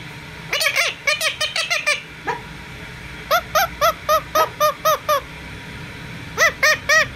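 Pet green parakeet calling in rapid runs of short, arched squawks, about five a second, in three bouts with short pauses between.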